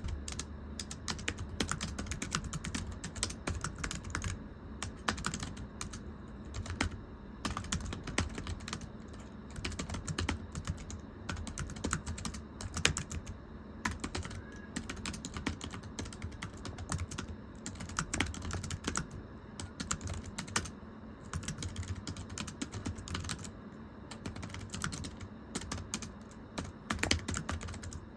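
Continuous typing on a very thin, low-profile computer keyboard: rapid, light, flat-sounding keystrokes in runs, broken by short pauses.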